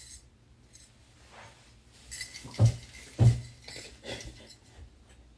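Two dull thumps about two and a half and three and a quarter seconds in, with faint clinking like a metal neck chain jingling.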